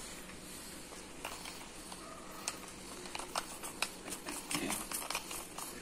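Light, irregular clicks and scrapes of a spin-lock collar being screwed down the threaded steel handle of a dumbbell, faint at first, then coming faster about halfway through.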